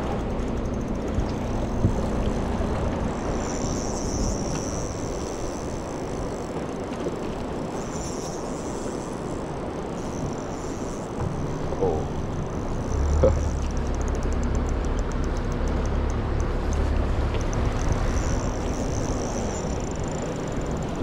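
Boat motor running steadily, with wind and water noise. Its low note grows louder about thirteen seconds in.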